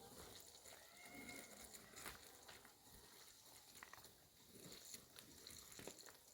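Near silence: faint scattered ticks and one faint, short animal call about a second in.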